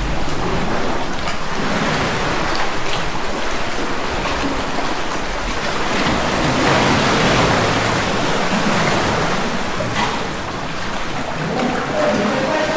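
Sea water splashing and sloshing around a sea kayak, with a few faint knocks.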